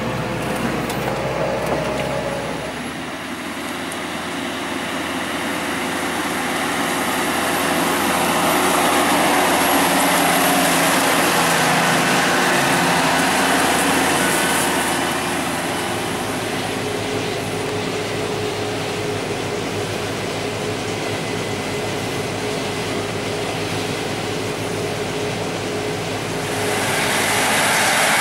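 Heavy farm machinery engines running steadily at work, with the sound changing abruptly three times as the shots change.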